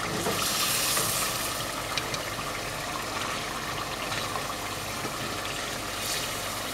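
Beef curry simmering and sizzling in a pot while a wooden spatula stirs it, with a louder hiss about a second in and again near the end, and a few light scrapes. Its cooking water has largely boiled off, so the thickened masala is starting to fry.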